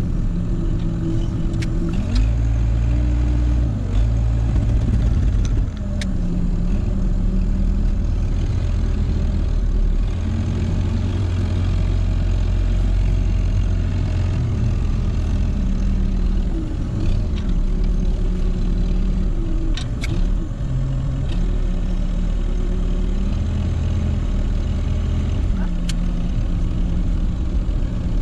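Tractor's diesel engine running inside the cab, rising and easing with load as the front loader works through snow, with a few short knocks and clatters.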